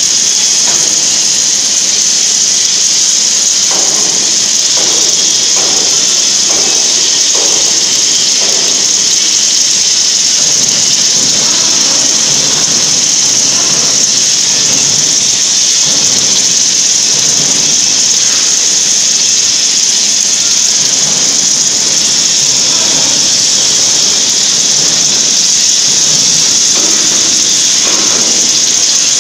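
Steady, loud hiss of a torch's gas jet on an automated cutting machine working a steel plate.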